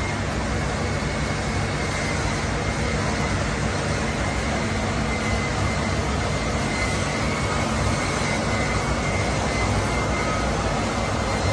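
Steady drone of factory machinery, a low hum under an even noise with a faint high whine.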